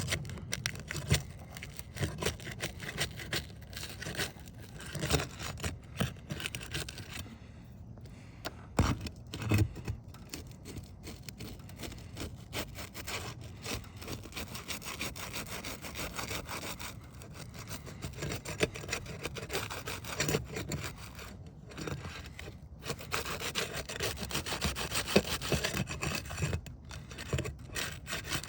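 Steel roofing flat bar scraping and prying under asphalt shingles to break their sealant strips: irregular rasping strokes with short knocks. The sealant is holding hard.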